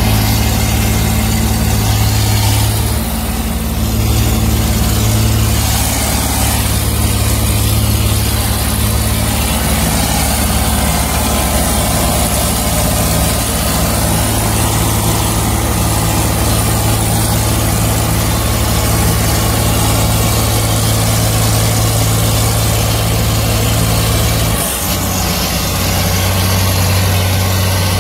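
Farm tractor's diesel engine running steadily under load while working up a field, heard from inside the cab. The engine note dips briefly and changes about 25 seconds in.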